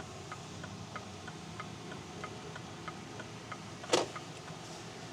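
Steady clock-like ticking, about three ticks a second, from the Mini Countryman SE's artificial in-cabin soundscape in its Timeless drive mode, over a faint low hum. One louder click comes about four seconds in.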